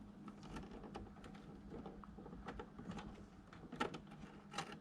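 Faint scattered taps and clicks of a DDR3 RAM stick being handled and worked into a desktop PC's memory slot while it is lined up, with two sharper clicks near the end.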